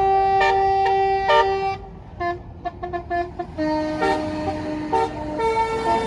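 Bus 'basuri' musical air horn playing a tune: long held notes at first, a quick run of short staccato notes about halfway through, then longer held notes again, each note at a different pitch.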